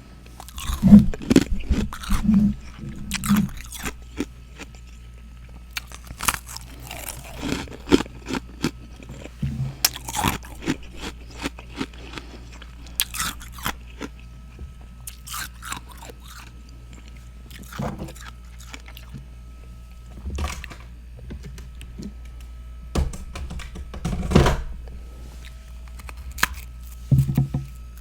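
A person biting and chewing crunchy freezer frost close to the microphone, in irregular crunches with short pauses between bites. The loudest crunches come about a second in and again near the end.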